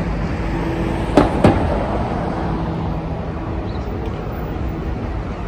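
City street ambience: a steady low traffic rumble with a faint hum, and two sharp knocks about a second in, a quarter second apart.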